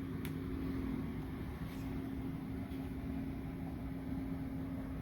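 A steady low mechanical hum, with a short click just after the start.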